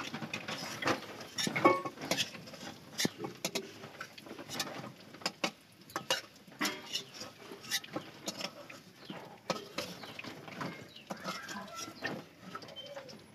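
A metal spoon clinks and scrapes against a karahi (wok) and a steel bowl as fried potatoes are lifted out of the oil, with irregular clicks and knocks throughout.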